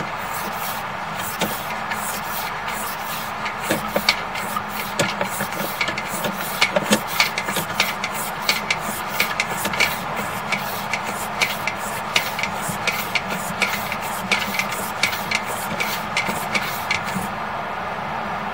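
Sewer inspection camera push cable being fed down the drain line: rapid, irregular clicks and rubbing, a few a second, over a steady equipment hum. The clicking stops near the end as the camera comes to rest.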